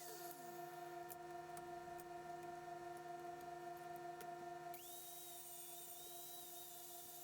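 A small motor's high whine winds down at the start and spins back up about four and a half seconds in, over a steady hum. A few faint ticks come in between.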